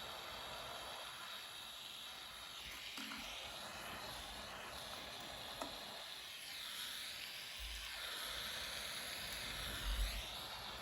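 Soldering torch flame hissing steadily, its tone sweeping up and down as the flame moves, with a small click a little past halfway and a couple of low knocks near the end.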